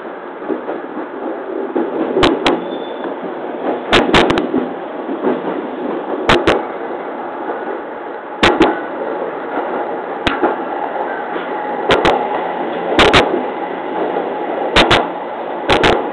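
Series 209 electric train running along the track, heard from the driver's cab: a steady rolling rumble with sharp paired clacks about every two seconds as the wheelsets cross rail joints.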